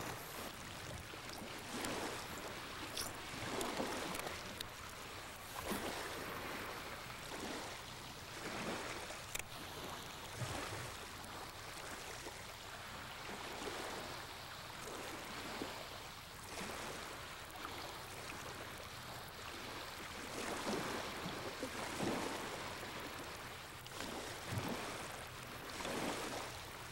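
Small waves lapping at a lake's edge, coming as soft washes every second or two.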